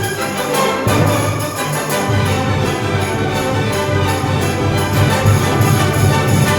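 Orchestral background music with brass, playing steadily.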